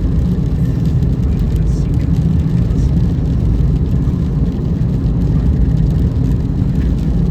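Car driving at steady speed: a continuous low rumble of road and engine noise that holds even throughout.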